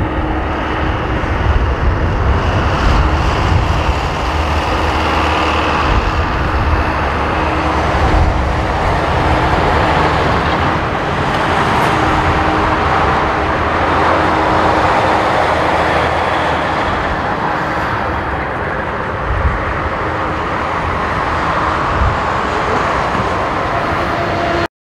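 Boeing 787-9 airliner's Rolls-Royce Trent 1000 turbofans at takeoff thrust during the takeoff roll and climb-out: a loud, steady rumble with a steady hum through it. It cuts off suddenly near the end.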